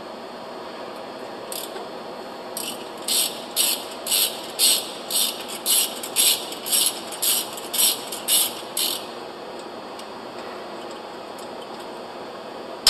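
Socket ratchet wrench clicking through about a dozen quick back-and-forth strokes, about two a second, as a split-coupler bolt is backed out.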